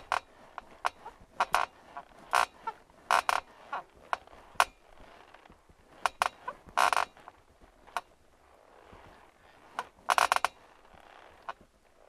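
Metal bed frame squeaking and creaking in short, irregular squeaks, with two longer, louder squeaks in the second half.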